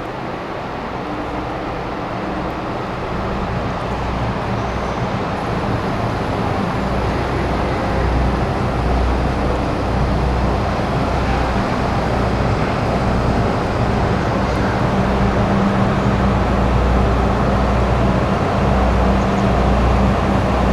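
Sleeper express train hauled by an EF65 electric locomotive pulling into the station, a low rumble and hum growing steadily louder as it approaches.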